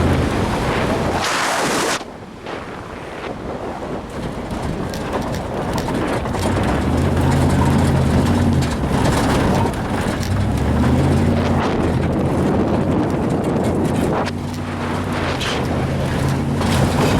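Truck engine running and revving unevenly while driving off-road, with wind buffeting the microphone. The sound changes abruptly about two seconds in.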